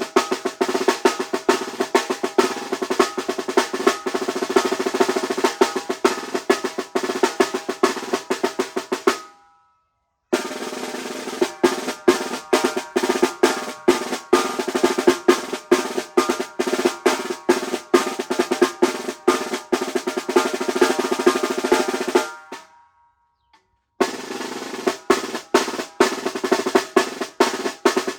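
Snare drum (tarola) played with sticks in rapid strokes and rolls, ringing. It is heard in three passages: twice the playing stops, the drum rings out into silence for a second or so, and the playing starts again.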